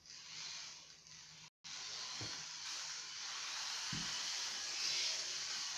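Toy electric train running round its track: a steady hissing whir of the small motor and wheels, loudest a little before the end. The sound briefly drops out about a second and a half in.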